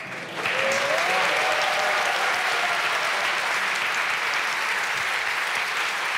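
Studio audience applauding, swelling in about half a second in and then holding steady.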